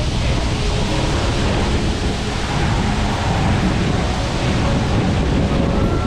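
Steady rush of a waterfall heard up close, with a heavy low rumble where spray and wind hit the camera microphone.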